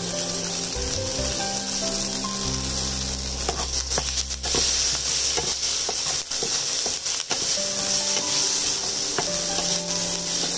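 A tempering of curry leaves, mustard seeds, urad dal and dried red chillies sizzling in hot oil in a nonstick frying pan, stirred with a wooden spatula that knocks lightly against the pan a few times. Soft background music with held notes plays underneath.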